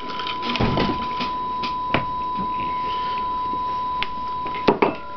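A steady high-pitched whine at one pitch, with a few light clicks of a drinking glass holding ice, two of them close together near the end.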